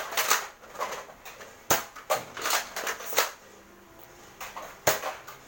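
A handful of sharp clicks and knocks, irregularly spaced, with a quieter stretch about two-thirds of the way through.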